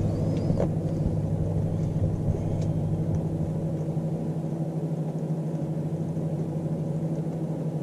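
Microwave oven running steadily, heating a bowl of water off the motorhome's lithium batteries: an even, low electrical hum.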